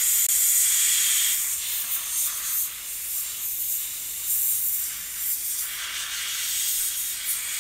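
Compressed air hissing from a pneumatic blow gun as it is swept over a circuit board. The hiss is strongest for the first second or so, then weaker and uneven as the compressor's pressure runs down.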